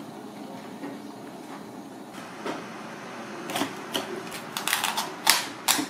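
Sharp clicks and knocks of a knife cutting into a crab's hard shell on a cutting board: a few at first, then a dozen or so in quick, irregular succession near the end.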